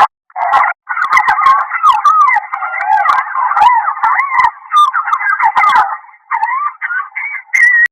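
Crying sound effect: a loud wailing, sobbing cry whose pitch wavers up and down, broken by short catches, sounding thin and tinny as if squeezed through a small band.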